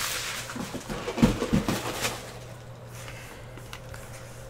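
Small cardboard hobby boxes handled and set down on a table: rustling and a few soft knocks about a second in, followed by a low steady hum.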